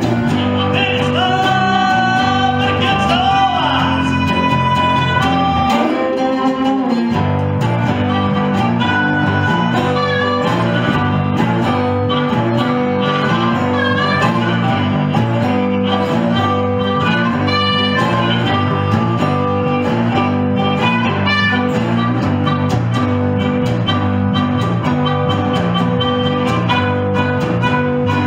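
Blues band rehearsing: resonator guitar, harmonica with held and bent notes, and electric bass playing together. The bass line drops out briefly about six seconds in.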